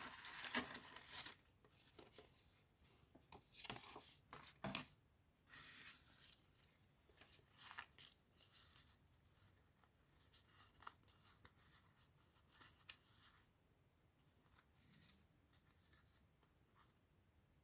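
Faint rustling and crackling of paper scrapbooking supplies and their packaging being handled, a cluster of short strokes in the first five seconds, then sparse light ticks and rustles.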